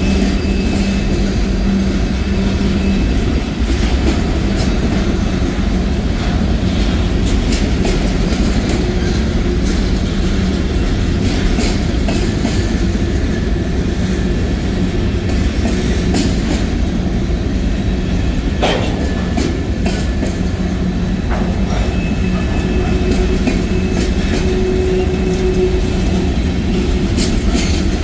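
Covered hopper cars of a freight train rolling past, steel wheels on the rails giving a steady rumble with scattered clicks and clacks. One sharp click comes about two-thirds of the way in.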